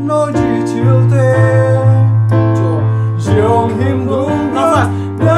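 A man singing a sad Korean ballad loudly, in Korean, with long held notes over instrumental backing.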